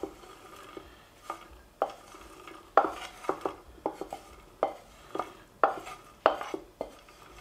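Wooden spatula knocking and scraping on a nonstick frying pan, pushing toasted pine nuts and seeds out into a wooden mortar. The knocks come unevenly, about two a second, some with a short ring.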